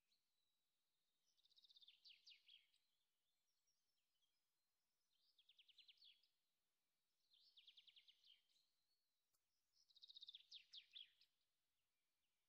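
Faint birdsong: four short phrases of rapid chirped notes a few seconds apart, over near silence. The electric hand mixer seen beating the eggs is not heard.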